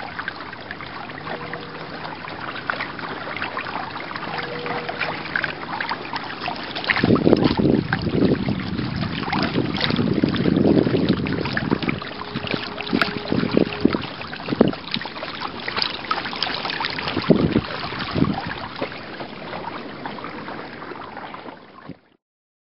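Wind on the microphone and water sloshing, with irregular knocks and clatter throughout. The sound cuts off suddenly near the end.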